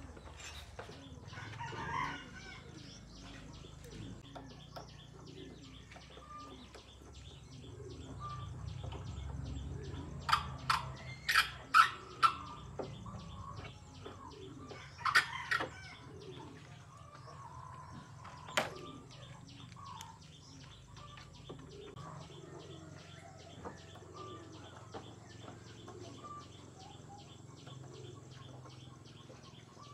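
A few sharp knocks and clinks, several in a quick cluster about a third of the way in and two more later, over a low steady background with chickens clucking.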